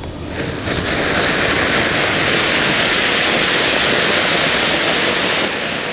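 Cock brand anar (ground fountain firework) spraying sparks with a steady, loud hiss. The hiss builds up over the first second and fades near the end.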